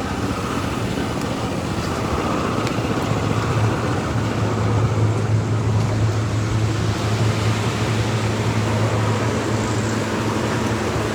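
Steady mechanical rumble with a low hum that comes up about three seconds in and eases off near the end.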